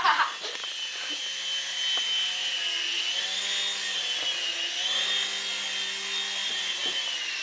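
Small battery-powered remote-control helicopter in flight, its electric motors and rotors giving a steady high whine that wavers slightly up and down in pitch as the throttle shifts.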